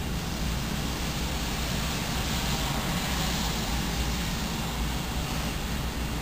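Steady background noise: an even low rumble with hiss above it, with no distinct events.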